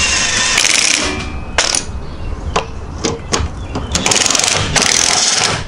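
DeWalt 20V XR cordless impact wrench hammering engine-mount bolts tight. It runs in two bursts, one for about the first second and another from about four seconds in, with a few separate clicks and knocks between them.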